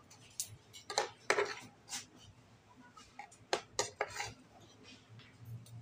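Metal spoon and fork clinking and scraping on a ceramic plate while eating, in a string of sharp clicks: a cluster about a second in and another about three and a half seconds in.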